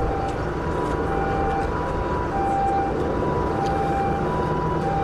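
Ambulance's two-tone siren alternating steadily between a high and a low note, each held about half a second, over a steady low rumble.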